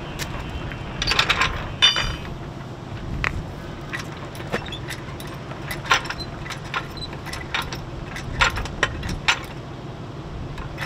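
Steel hydraulic floor jack and hand tools clinking and knocking as the jack is set under a boat trailer and its handle fitted. There is a metallic ringing clank about two seconds in, then scattered clicks.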